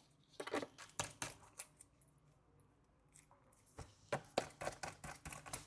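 Small metal clicks and scrapes of a precision screwdriver and screws on a MacBook Pro's aluminium bottom cover, in two bursts: a few clicks in the first two seconds, then a quicker run from about four seconds in.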